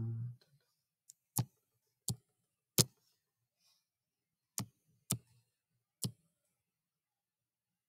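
Computer mouse clicking: about seven sharp single clicks, spaced irregularly between about half a second and two seconds apart.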